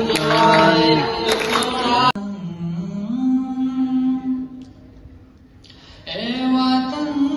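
A man singing into a microphone over a hall's loudspeakers. About two seconds in the sound cuts abruptly to a male voice holding long, steady sung notes, which fade to a quiet gap before another long note begins about six seconds in.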